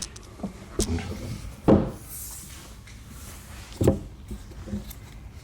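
A few knocks and clunks of hands and tools working on a lawn mower's rear wheel to take it off, loudest about two seconds in and again near four seconds, with a brief scrape between.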